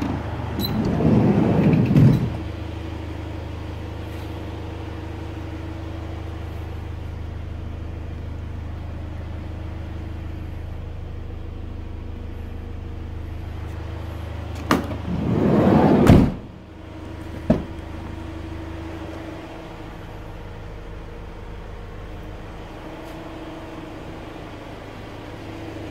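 Hyundai H1 Starex van's sliding side door rolling along its track and shutting with a knock, twice: about two seconds in and again near sixteen seconds, with a click just before the second and another soon after. A steady low hum runs underneath.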